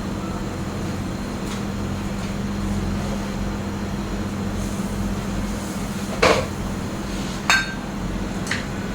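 A steady machine hum, with two sharp clinks about six and seven and a half seconds in and a couple of fainter ticks.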